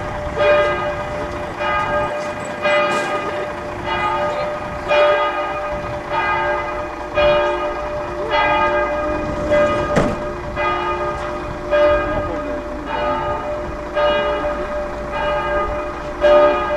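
Church bells ringing, a strike about once a second, each one ringing on into the next.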